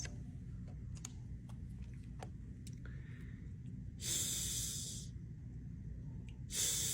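A voice saying a voiceless hissing consonant on its own, twice, each about a second long and some two and a half seconds apart, as a single letter sound of the Heiltsuk alphabet.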